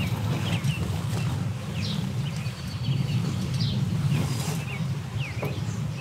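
Small birds chirping repeatedly in short, high, downward-sliding notes over a steady low hum.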